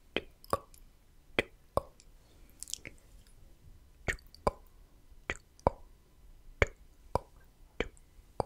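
Slow ASMR mouth sounds very close to a microphone: crisp tongue-and-lip clicks of the 'tk tk' kind, mostly in pairs less than half a second apart and later single, with a brief hiss about two and a half seconds in.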